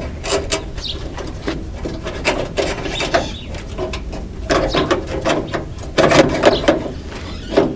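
Mechanical clicks, knocks and short squeaks of door latch and handle hardware being worked by hand, in irregular bursts that are busiest in the second half.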